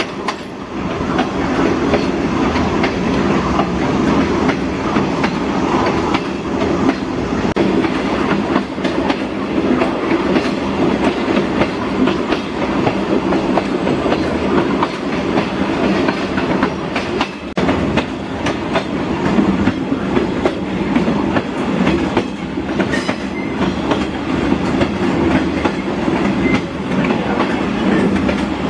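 A caboose rolling along the track, heard from its open rear platform: a steady rumble of the wheels on the rails, with irregular clicks as the wheels pass over the rail joints.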